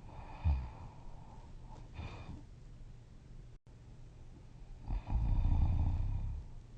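A sleeping person snoring loudly: a short snort about half a second in, a softer breath near two seconds, then one long, low snore of about a second and a half near the end.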